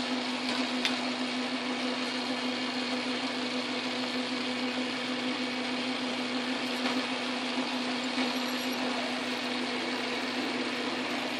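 Metal lathe running steadily while a twist drill in the tailstock chuck bores a hole into the spinning workpiece: a constant motor hum under the noise of the cut.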